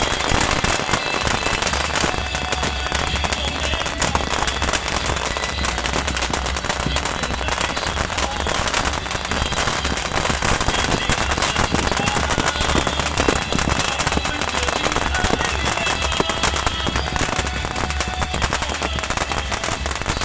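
Beehive fireworks going off: massed racks of bottle rockets firing in a dense, unbroken crackle of rapid pops that holds steady throughout, with crowd voices mixed in.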